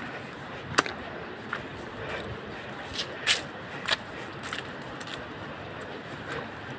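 Steady outdoor background hiss with a few sharp clicks and taps at irregular intervals.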